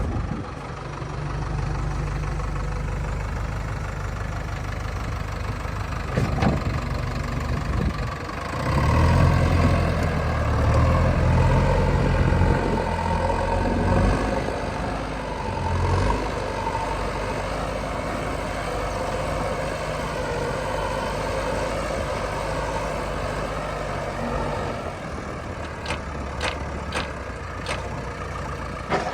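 Heavy diesel machine engine running steadily, picking up load and running louder for several seconds a third of the way in, then settling back. A few sharp clicks near the end.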